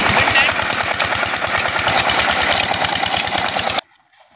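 Diesel 'Peter' engine driving a tubewell pump, running with a steady rapid beat over water gushing from the outlet pipe. It cuts off abruptly about four seconds in, leaving a faint quiet outdoor background.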